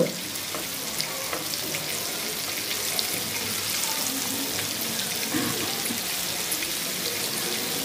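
Rava-and-jowar-flour-coated Bombay duck (bombil) pieces shallow-frying in hot oil on a heavy iron tawa: a steady sizzle with small pops and crackles scattered through it.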